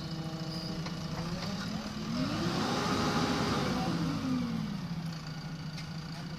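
Diesel engine running steadily, revving up about two seconds in, holding the higher speed for a couple of seconds, then dropping back to its lower speed.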